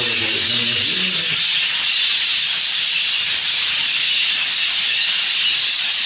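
Many budgerigars chattering at once in a breeding room: a dense, steady, high-pitched din that sounds almost like a hiss.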